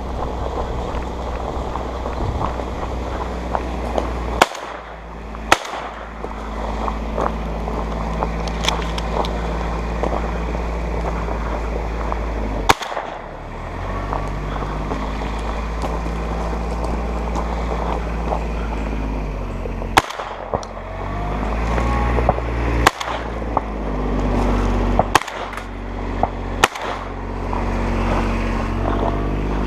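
Seven shotgun shots from a Remington Versamax semi-automatic shotgun, fired singly and spaced out over the stretch: two a second apart, then single shots and a closer group of four. Under them runs the steady low hum of a UTV engine following behind.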